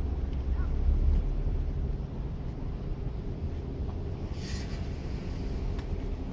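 Outdoor city ambience dominated by a low, uneven wind rumble on the microphone, with distant traffic underneath. A brief hiss comes about four and a half seconds in.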